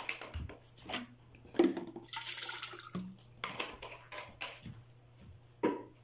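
Water being poured and splashing, with a brief hissing rush about two seconds in, among scattered knocks and clinks of handling. A steady low hum runs underneath.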